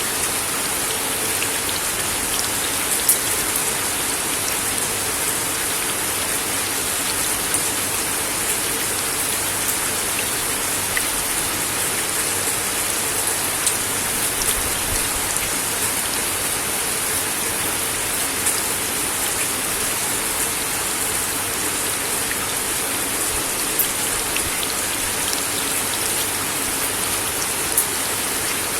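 Steady rain falling on a wooden deck, a constant hiss with scattered sharper drop ticks.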